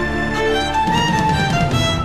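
Music playing: held melodic notes, with a fuller, rhythmic low end joining about halfway through.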